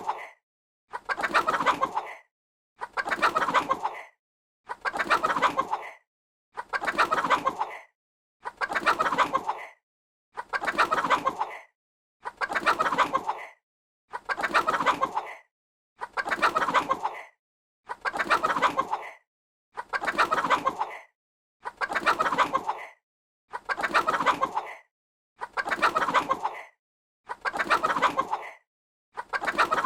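Chicken clucking: the same burst of rapid clucks, about a second long, repeats every two seconds with silence between, about fifteen times.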